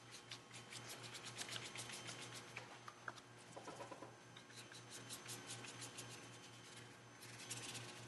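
Paintbrush stroked back and forth over paper, a faint run of quick brushing strokes, a little louder near the end.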